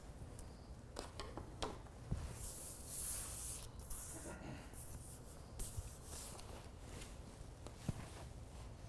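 Faint rustling and handling sounds with scattered light clicks and taps, as of objects being moved and handled at a table.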